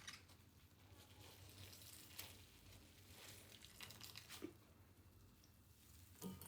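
Near silence with faint rustling and a few soft, scattered clicks of handling.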